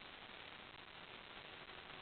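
Near silence: a faint, steady hiss with nothing else.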